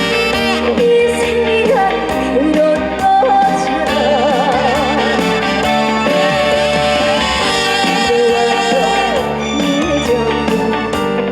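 A woman singing a trot song with strong vibrato over loud instrumental accompaniment.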